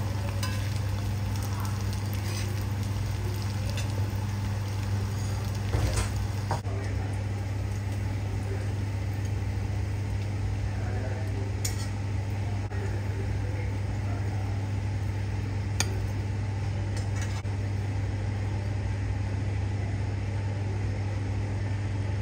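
Faint sizzling of chicken frying in a karahi over a steady low hum, with a few sharp metal clinks of a steel spoon against the pan. The loudest clinks come about six seconds in.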